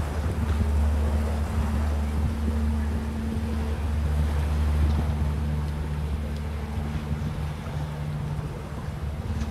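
Motorboat engine running at low speed, a steady low hum.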